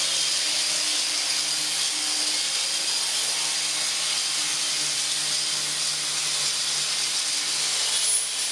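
Electric angle grinder running steadily as it cuts a wooden board, a loud hissing whir over a steady motor hum.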